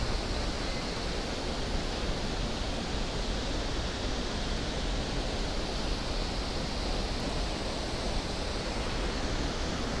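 Steady rush of a waterfall and the river water below it: an even, unbroken hiss.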